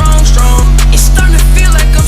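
Music track with deep, sustained bass and a steady drum beat.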